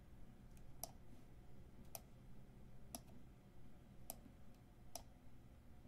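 Faint single computer mouse clicks, about one a second, five in a row.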